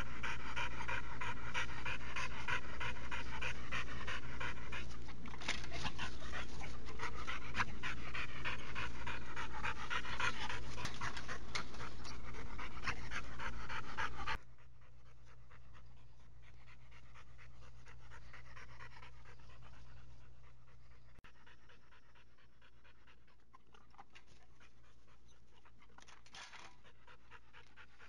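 Blue pit bull panting hard and fast, close to the microphone, from exertion during exercise. About halfway through it suddenly drops to fainter panting.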